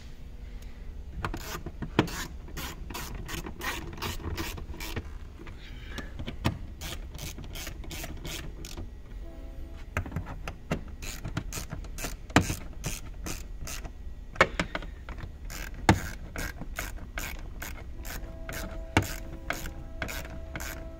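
Hand ratchet wrench clicking in runs, about three clicks a second with short pauses, as a mounting nut on a convertible-roof hydraulic pump is tightened. A few sharper knocks stand out among the clicks.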